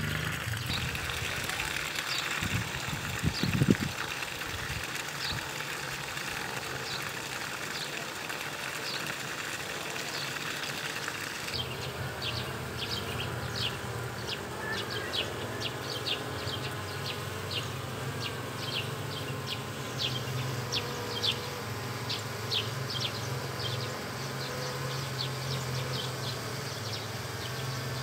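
Honeybee swarm humming steadily as the bees gather onto a wax foundation frame. A few knocks come about three to four seconds in, and a run of short high chirps sounds over the hum through the second half.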